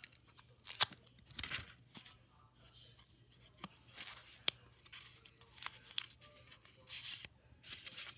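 Paper crinkling and tearing in short, irregular bursts, with a few sharp clicks, as a homemade paper package is opened by hand.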